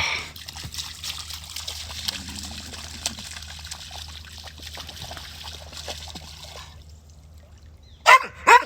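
A dog splashing and wallowing in shallow muddy water: a steady trickling, sloshing noise with many small splashes, which stops about seven seconds in. Two short loud calls follow near the end.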